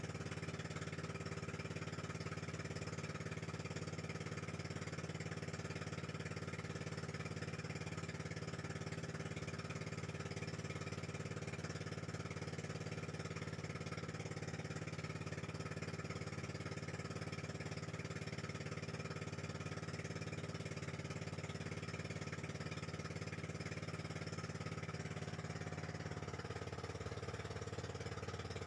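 Engine of a motorized outrigger boat (bangka) running steadily under way, a constant drone; its note shifts slightly near the end.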